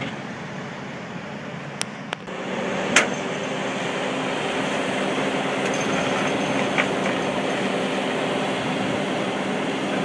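A farm vehicle's diesel engine running steadily, growing louder about two seconds in. A few sharp clicks or knocks come in the first three seconds.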